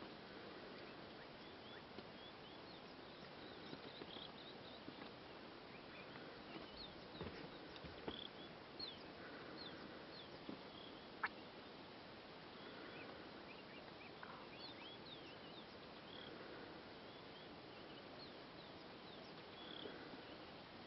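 Faint outdoor ambience with many short, high bird chirps scattered throughout, a few soft rustles, and one sharp click about eleven seconds in.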